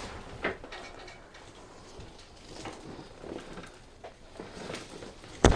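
Soft shuffling and rustling as a patient settles on a chiropractic table, then near the end a single sharp crack with a thud from a side-lying spinal adjustment: the thrust and the audible pop of the joint.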